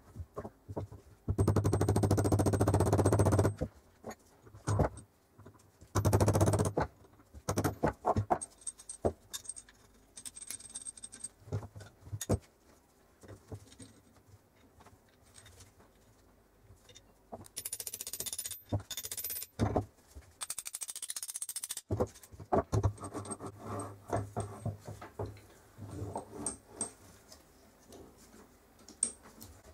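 Metal parts of a two-speed geared hand drill being handled during reassembly: clicks, clinks and scrapes of the gears and shafts against the drill's metal frame. There are two longer spells of rapid rattling, about a second in and again late on.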